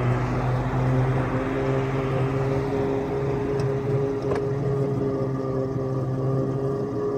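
A 7½-inch gauge ride-on locomotive running at a steady speed along the track: an even drone with a few constant tones over a rumble.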